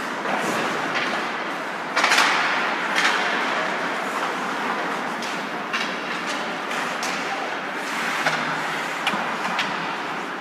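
Ice hockey play echoing in a rink hall: a steady scrape of skates on ice, broken by sharp clacks of sticks and puck. The loudest is a knock about two seconds in, with a second one about a second later.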